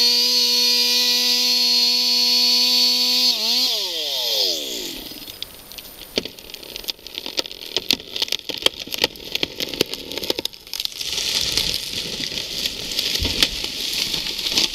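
Chainsaw running flat out at a steady high pitch, then let off about three and a half seconds in, its pitch falling away. After that comes a long run of sharp cracks and snaps of wood, with a low thud near the end.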